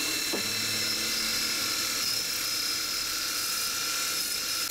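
CNC mill spindle running with a steady high whine as a drill bit peck-drills into an aluminum plate. A short falling tone comes just after the start.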